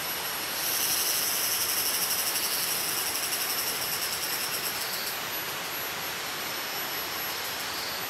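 Forest insect chorus: a high, finely pulsing buzz that swells about half a second in and eases off around five seconds, over a constant hiss.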